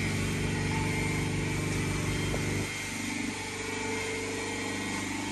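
An engine running steadily at idle, its level dropping a little about halfway through.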